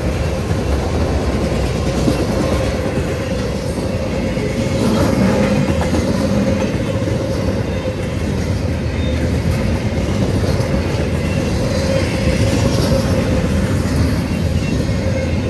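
CSX intermodal and autorack freight train rolling through a grade crossing at speed, its cars' wheels clattering steadily over the rails.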